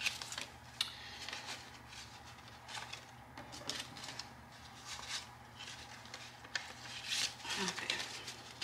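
Paper banknotes rustling and flicking in the hands as they are pulled from a clear plastic cash envelope and sorted for counting. The sound comes as many short, quiet, irregular rustles.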